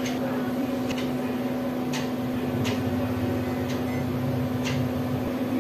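A steady electrical hum with a light, regular tick about once a second.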